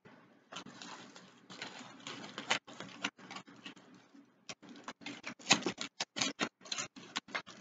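Close-up eating sounds from a person eating a baked potato: wet chewing and mouth smacks, as irregular sharp clicks with soft noise between them. The clicks come faster and louder in the second half.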